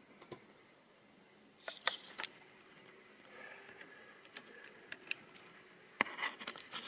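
Scattered light clicks and taps, a few at a time, with a denser run of them near the end, and a faint whir a little after the middle.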